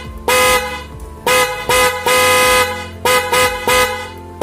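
12-volt snail horn honking in six blasts of a steady, loud tone: two short ones, a long one of about a second, then three quick toots near the end.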